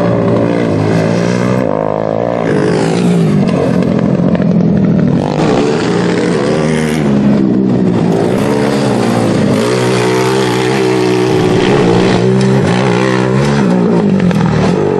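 Off-road race truck engines revving hard, pitch rising and falling repeatedly as they accelerate and lift off.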